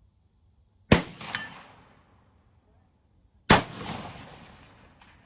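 Two shots from a Troy P7A1 AR-15 pistol with a 7.5-inch barrel firing 5.56 rounds, about two and a half seconds apart, each a sharp crack followed by a long echoing tail.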